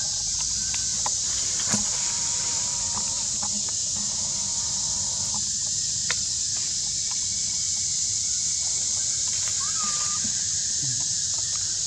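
Outdoor ambience: a steady high-pitched hiss over a low rumble, with two faint clicks and a few short, faint chirps.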